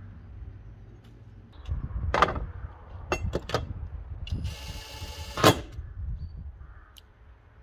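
Cordless impact driver running for about a second, driving a bolt into a mitre saw's metal table, amid sharp knocks and clanks of metal parts being handled. The loudest is a single sharp knock just as the driver stops.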